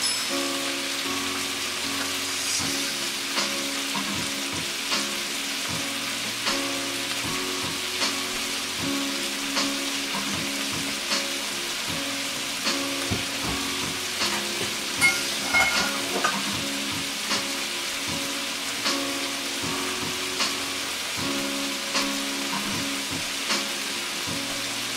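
White beans and onions sizzling steadily in olive oil in a frying pan, with a brief stir of a silicone spatula at the start. Background music with a slow, regular beat plays underneath.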